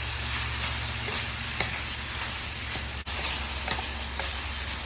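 Ground turkey sizzling as it fries in a pan while being stirred, with a few short clicks of the stirring utensil against the pan.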